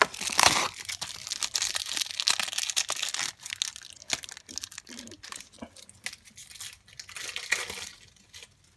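A Match Attax trading-card pack being torn out of a cardboard multipack backing and its foil wrapper ripped open: a loud tear about half a second in, then continuous crinkling and rustling that fades near the end.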